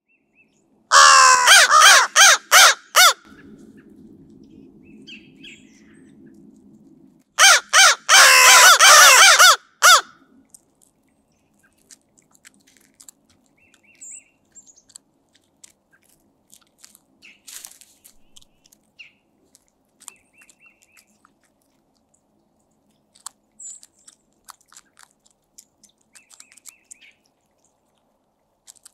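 Crows cawing loudly in two bouts of several harsh caws each, one starting about a second in and the other about eight seconds in, with a low steady hum between them. After that only faint clicks and small pecking sounds as the crows pick at food.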